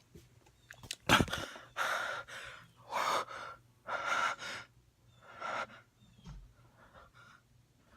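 A thump about a second in, then a person breathing hard in a series of loud gasps, roughly one a second, fading off.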